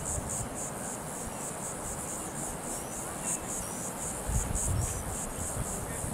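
Insects trilling high in an even, steady pulse, with a few low rumbles, the strongest about four seconds in.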